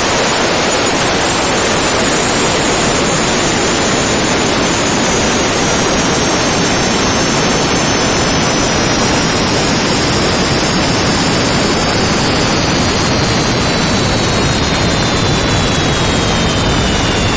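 Two turbojet engines running with a loud, steady roar. Their turbine whistle slowly falls in pitch throughout, and near the end it splits into two separate falling tones: the engines are beginning to spool down from full power.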